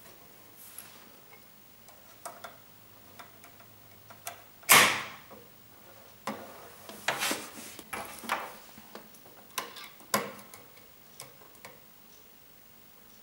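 Metal clicks and clinks of a wire-mesh live-catch mouse trap being handled and set, its spring-loaded door and wire lever moved by hand. One sharp snap about five seconds in is much the loudest, followed by a run of quicker clicks for a few seconds.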